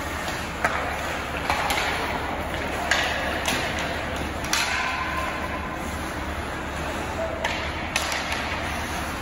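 Ice hockey play: a steady hiss of skates on the ice, broken by several sharp clacks of sticks striking the puck.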